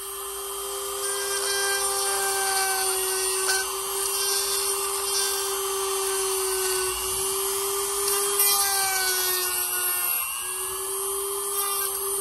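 Small electric drill running with a steady whine, drilling a hole down into a plastic action figure part; the pitch sags briefly about ten seconds in.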